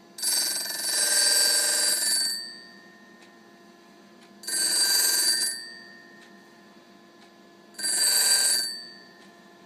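Grinding wheel cutting a countersink's flutes on a sharpening fixture: three grinding passes, the first about two seconds long and the next two about a second each, with a high ringing screech as the wheel bites the tool.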